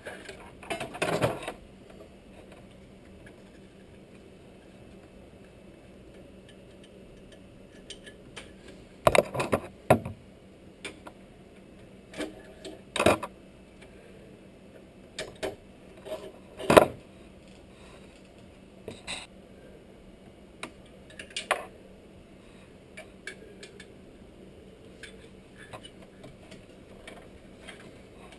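Irregular clicks, taps and short rattles of a plastic cable tie being handled and threaded through a computer case fan's mounting hole, coming in small bursts a few seconds apart.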